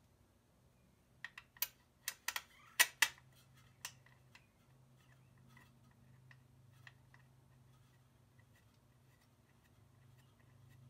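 Hand tools and bolts clinking while cover bolts are fitted: a quick cluster of about eight sharp clinks with a short ring, the loudest about three seconds in, then a few faint ticks over a steady low hum.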